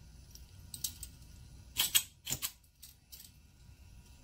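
Flint striker being scraped to light a gas welding torch: a handful of sharp metallic clicks and scrapes, the loudest about two seconds in, over a faint hiss of gas from the torch tip.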